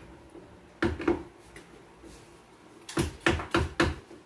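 Claw hammer striking the connectors on the top of a clothes cabinet frame while it is being assembled: two blows about a second in, then, from about three seconds in, a steady run of about four blows a second.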